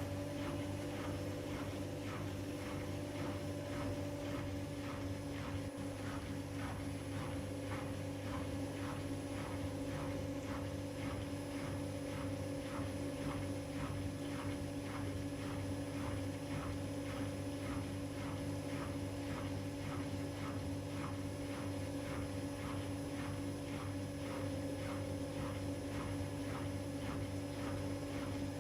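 Beko washing machine running: a steady motor hum with a fast, even pulse above it.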